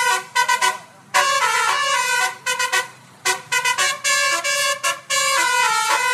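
Simulated basuri multi-tone bus horn from a phone app, playing a tune note by note: quick short blasts mixed with longer held notes, with brief gaps between phrases.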